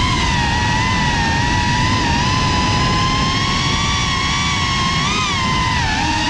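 GEPRC Cinelog35 cinewhoop drone's brushless motors and propellers whining in flight, over a rough rumble of prop wash and wind. The whine's pitch shifts with throttle, rising briefly and then dipping about five seconds in.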